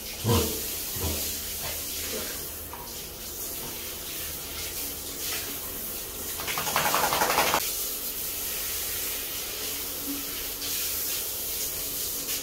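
Handheld shower head running, a steady hiss of spraying water splashing over a Boston terrier and the tiled floor, louder for about a second just past the middle. A couple of short knocks in the first second.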